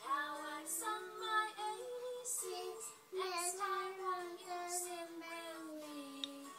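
A young child singing a tune in two phrases; the second ends on a long held note that slowly sinks in pitch.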